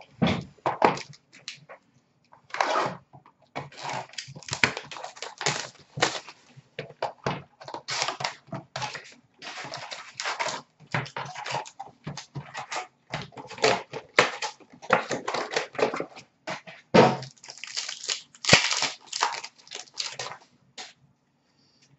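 Cardboard hobby box and foil packs of 2019-20 Upper Deck SP Authentic hockey cards being opened by hand: irregular rustling, crinkling and tearing of wrappers, with cards being handled.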